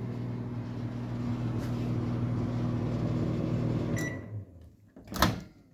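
Microwave oven running with a steady hum, which stops about four seconds in with a short beep. About a second later comes a sharp clunk as the door is opened to check the food.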